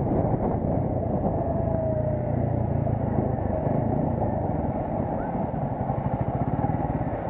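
TVS Apache 200 single-cylinder motorcycle engine running at low speed as the bike rolls slowly and slows down, its separate firing pulses growing more distinct toward the end.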